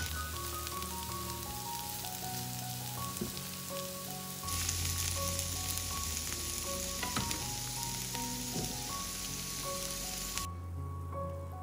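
Sliced carrots and red onion sizzling as they fry in oil in a nonstick pan, with a few light knocks from stirring with a wooden spatula. The sizzle cuts off suddenly about ten seconds in, leaving soft background music.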